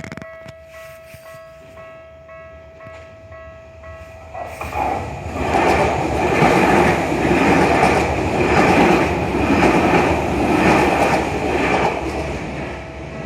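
Japanese level-crossing bell ringing steadily in a rhythmic pattern. About four and a half seconds in, a Tokyu Meguro Line train passes over the crossing for about eight seconds, its wheels clattering rhythmically over the rail joints and drowning out the bell, then fades near the end.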